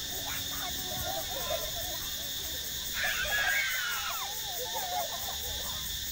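High-pitched voices squealing and chattering, with one louder, wavering squeal about three seconds in, over a steady high insect buzz.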